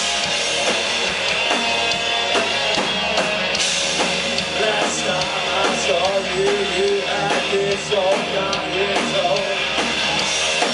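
Live rock band playing an instrumental passage: drum kit keeping a steady beat under electric guitars, with a lead melody line wavering in pitch from about four seconds in.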